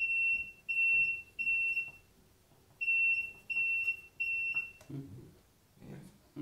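Smoke alarm sounding the temporal-three evacuation pattern: two groups of three high-pitched beeps, each about half a second long, with a pause of about a second between the groups.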